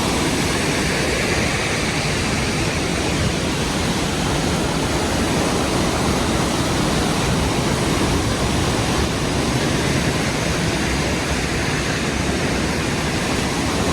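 Waterfall: a steady rush of water falling and spilling over rock, unchanging throughout.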